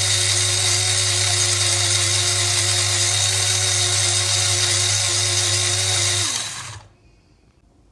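Small electric spice grinder running steadily at full speed, with a steady motor whine, grinding spices into a marinade paste. It is switched off about six seconds in and its pitch falls briefly as the motor winds down.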